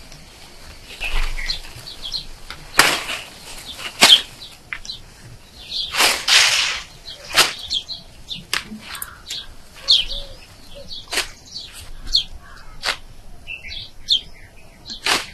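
Leafy drumstick (moringa) branches rustling, with short sharp snaps and crackles of stems as the leaves are broken off by hand, irregularly about once a second. Small birds chirp throughout.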